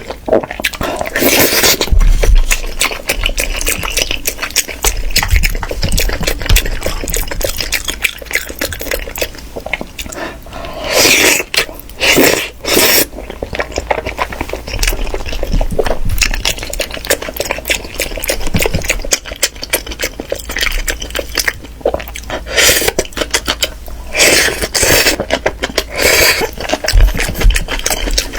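Food preparation sounds: liquid splashing and pouring, with many small clicks of utensils against dishes and a few louder splashy bursts.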